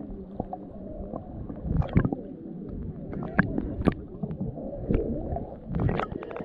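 Muffled sound of water heard from under the surface by a submerged camera: a low sloshing rumble with scattered sharp clicks and knocks.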